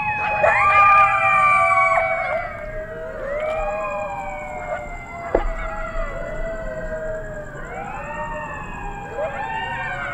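A group of coyotes howling and yipping together, many voices overlapping in rising and falling glides, loudest in the first two seconds.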